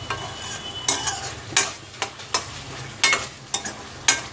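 Metal ladle scraping and knocking against a metal kadai as thick mutton masala is stirred, a stroke every half second or so, over a soft sizzle of frying. The cooking water has boiled off, so the masala is frying in its oil.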